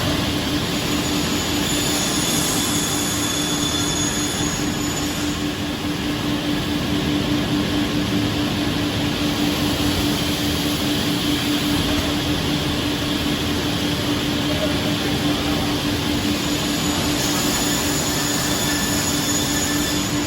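CNC panel beam saw running: a steady machine noise with a constant low hum. A faint high-pitched whine rises over it twice.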